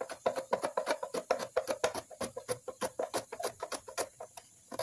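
Peeled banana being pushed back and forth over a plastic mandoline slicer, each pass over the blade a short scraping cut, in a quick even rhythm of about four strokes a second that stops near the end.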